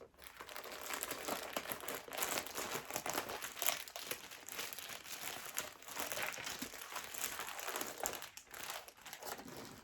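Packaging crinkling and crackling continuously as balls of super bulky yarn are handled and unwrapped. It stops just before the end.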